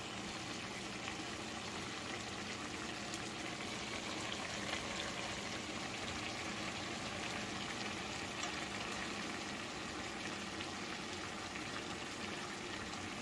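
Chunks of burbot simmering in melted butter with onion and green pepper in a frying pan: a steady bubbling sizzle with faint crackles.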